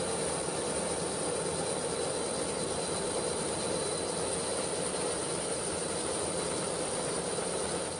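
Steady drone of an aircraft's engines heard from on board: a broad rushing noise with a thin, constant high whine.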